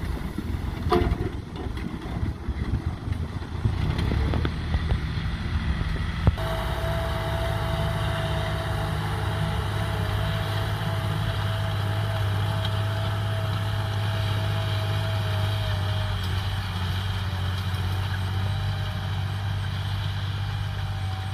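John Deere tractor's diesel engine running under load as it pulls a disc plough. For the first six seconds it sounds rough, with scattered knocks; then it settles into a steadier drone with a faint steady whine over it for about ten seconds.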